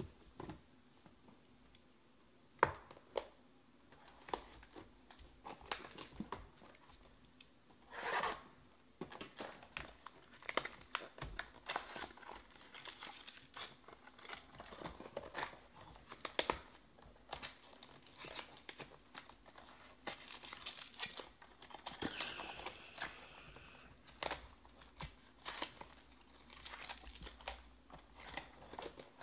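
Hands handling trading-card hobby boxes and sealed card packs: wrappers crinkling and tearing, with scattered light clicks and taps of cardboard and card stock.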